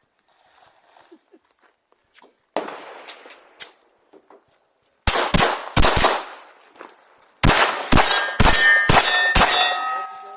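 Pistol shots fired at steel plates, about nine sharp reports in quick succession from about halfway in, with the steel clanging on hits and a plate left ringing after the last shot.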